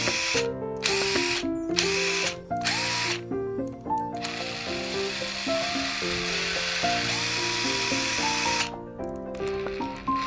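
Makita TD022D pen-type impact driver's motor running free in the air as a post-repair function test: several short trigger bursts, then one steady run of about four seconds that cuts off near the end.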